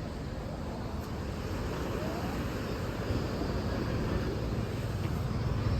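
Steady outdoor rumble and hiss like passing traffic, growing a little louder toward the end.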